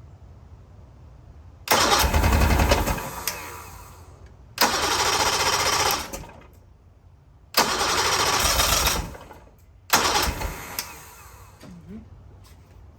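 Three-cylinder outboard motor cranked by its electric starter in four bursts of a second or two each, every burst dying away without the engine catching: it turns over and smokes but won't start.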